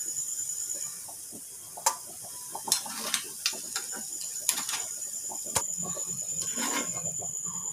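Metal spoon clicking and scraping against a paniyaram pan as cooked kuzhi paniyaram are lifted out and dropped into a steel bowl: a few scattered light clinks, over a faint steady high whine.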